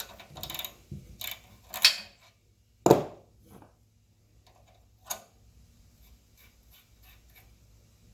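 Ratchet wrench clicking in short runs, then a single loud clunk about three seconds in and a sharp click near five seconds, followed by faint scattered ticks: tools working rusted, tight nuts off a small water pump.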